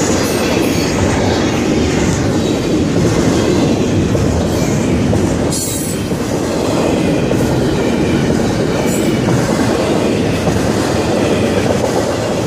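Intermodal freight train's container cars rolling past at speed: a steady, loud noise of steel wheels on the rails, dipping slightly about six seconds in.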